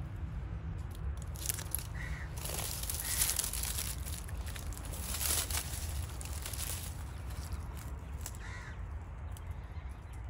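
Footsteps crunching and rustling through dry fallen leaves, loudest in the middle, with two short bird calls, one about two seconds in and one near the end.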